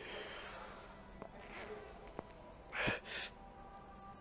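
A weightlifter's forced breathing under the strain of a heavy set of incline presses on a Smith machine, with one sharp gasping exhalation about three seconds in. A faint click comes just before it.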